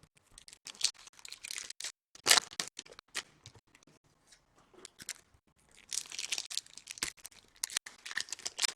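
Trading cards and their foil pack wrappers being handled: irregular bursts of rustling and crinkling, with a few sharp clicks, loudest a little over two seconds in and again near the end.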